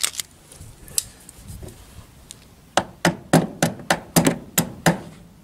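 Small hammer tapping the spiked centre pins of drive rivets home to lock them, fixing a loose mud guard on a Land Rover: a couple of light clicks, then from about halfway a steady run of sharp metallic taps, about three or four a second.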